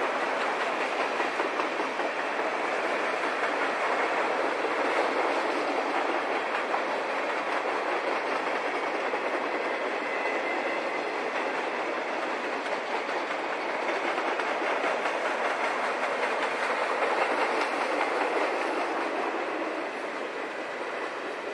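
Freight train of boxcars and tank cars rolling past: steady rolling noise and clatter of steel wheels on the rails, easing a little near the end.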